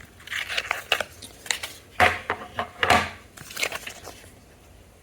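Packaging being handled, crinkling and rustling in a string of short bursts that die away about four seconds in.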